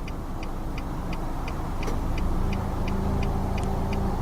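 Low rumble of a passing road vehicle, swelling louder about halfway through, over a faint steady ticking about three times a second.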